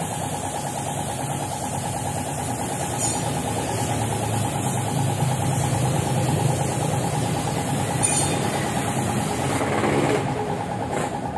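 Paint spray gun hissing, with an air compressor running steadily behind it. Two short, sharper hisses come about three and eight seconds in.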